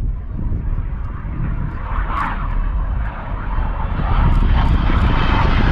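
Jet engine roar of BAE Hawk display jets passing low, growing louder about four seconds in as the aircraft approach, over a heavy low rumble.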